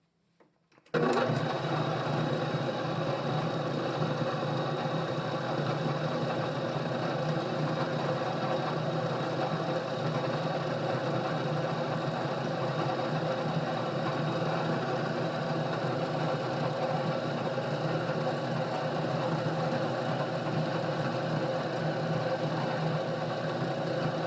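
A workshop power tool's electric motor starts about a second in and runs steadily at a constant speed, with a hum and a high whine.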